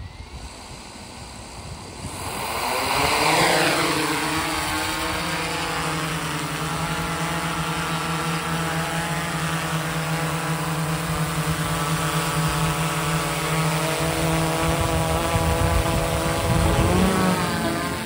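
DJI Inspire 2 quadcopter's four motors and propellers spin up with a loud whir about two seconds in. It settles into a steady, buzzing propeller hum as the drone lifts off and hovers. Near the end the pitch shifts briefly as it climbs.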